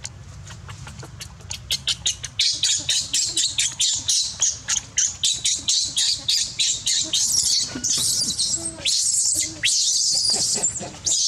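Infant macaque screaming in distress while its mother handles it. The screams are rapid and high-pitched, about four a second, starting a couple of seconds in, and run together into longer shrieks near the end.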